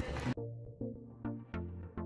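Background music: a quick run of plucked low notes, several a second, cutting in abruptly about a third of a second in over a moment of room chatter.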